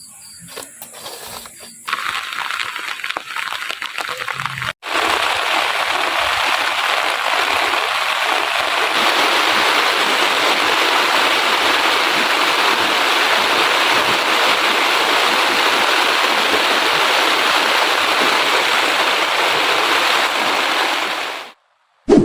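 Heavy rain pouring down as a steady, loud hiss of water. It builds about two seconds in, is full from about five seconds, and cuts off abruptly near the end.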